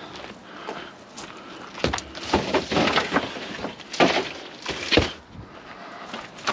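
Plants being handled and set into a pickup truck's bed: rustling leaves and pots, with several sharp knocks as they are put down.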